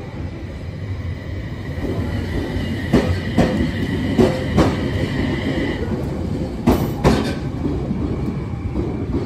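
Aoimori Railway 703 series two-car electric train (E721-based) pulling out and moving off, rumbling as its wheels click in quick pairs over rail joints three times. A steady high whine runs for a few seconds in the middle.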